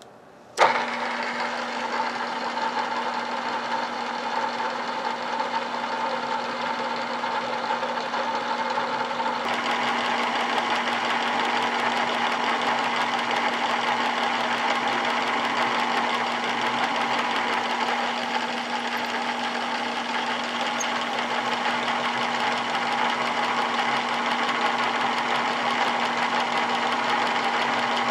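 Drill press switched on with a sharp click about half a second in, then running steadily with a constant motor hum while its twist drill cuts down into a metal workpiece, the cutting noise growing brighter about nine seconds in.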